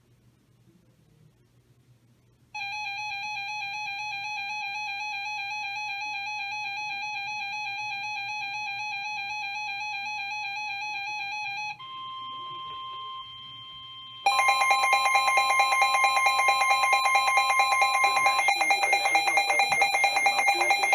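Electronic weather-alert tones: a warbling alarm tone holds for about nine seconds, a quieter steady tone follows, and then a loud, rapidly pulsing alarm sounds over a steady tone, the warning alarm that comes before a NOAA Weather Radio warning broadcast.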